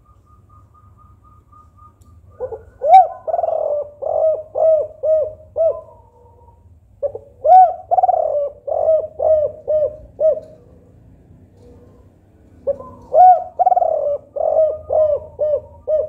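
Spotted dove (tekukur) of the 'kuk 4' song type cooing. It gives three phrases, each a run of about six or seven arched coos, starting about two and a half seconds in, about seven seconds in, and near the end.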